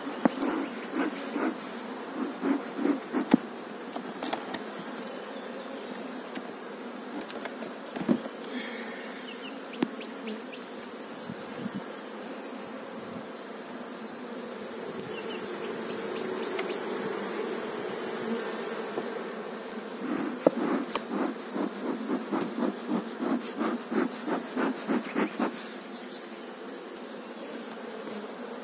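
Honeybees buzzing steadily over an open hive, with two stretches of rapid pulsing sound, about two a second, near the start and again about two-thirds in.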